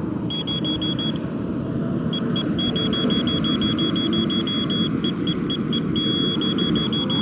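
Grade laser receiver beeping in runs of quick, evenly spaced high beeps, about six a second, with one short held tone about six seconds in. Under it, heavy equipment's diesel engine runs steadily.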